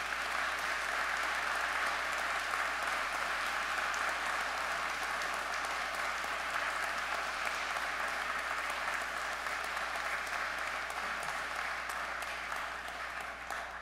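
Congregation and clergy applauding, a sustained round of clapping that tapers off near the end.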